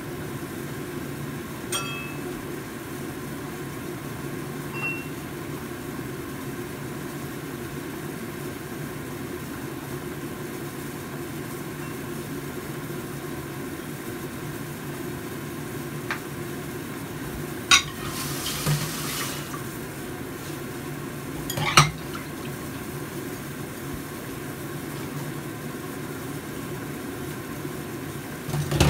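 Tomato broth boiling hard in a stainless-steel pot on a gas stove: a steady bubbling rumble, with a few sharp knocks here and there.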